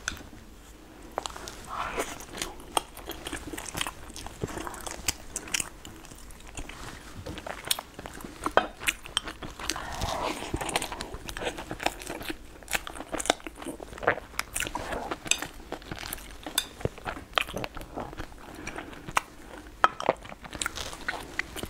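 A person biting and chewing soft filled dough balls, close to the microphone, with many short sharp clicks throughout.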